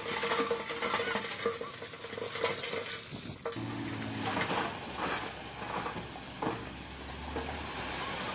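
Earthmoving machinery at work: a continuous scraping, rattling noise of soil and stones with irregular clatters. The sound changes abruptly about three and a half seconds in.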